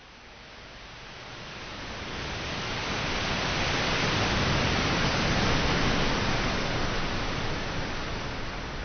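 Surf on a beach: waves breaking and washing up the sand as a steady rushing noise that swells to its loudest about five to six seconds in, then eases.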